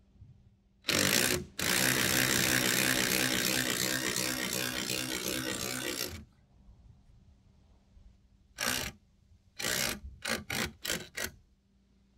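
A handheld power driver runs on the bolts of the trailer's bumper-mounted spare tire carrier while the spare is fastened back on. It gives one short burst, then a steady run of about four and a half seconds, then a string of short bursts near the end as it snugs the fasteners.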